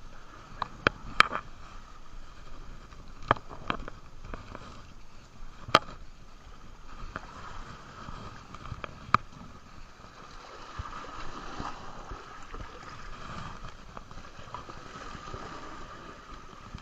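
Steady outdoor water and wind noise, broken by several sharp clicks or knocks in the first ten seconds. The loudest come about a second in and near six seconds.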